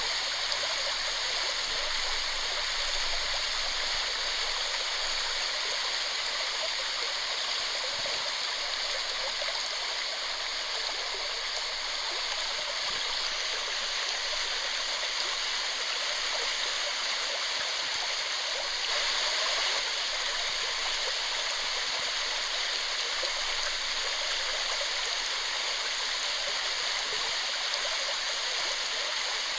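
Waterfall: a steady, even rush of falling water splashing into a pool.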